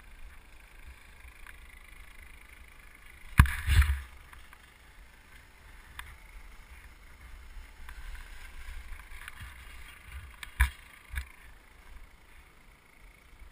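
Skis scraping and crunching on clumpy, thin early-season snow, over a steady low rumble on the helmet camera's microphone. A sharp knock comes a little over three seconds in with a short scraping burst after it, and two smaller knocks follow near the end.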